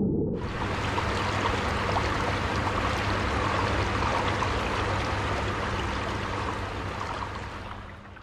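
Jacuzzi J335IP hot tub jets churning the water, a steady rushing, bubbling sound with a low hum underneath, fading out near the end.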